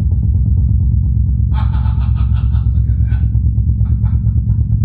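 Moog Model D synthesizer holding a low F1 note of about 44 Hz on three oscillators, reproduced by an SVS SB-5000 15-inch sealed subwoofer: a steady, deep bass drone that wavers quickly in level.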